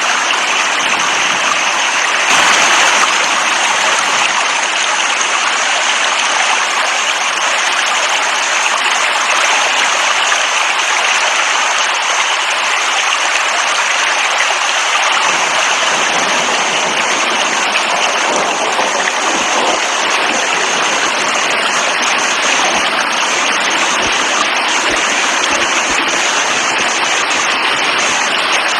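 Heavy rain falling, a dense steady hiss, with a brief louder surge about two seconds in.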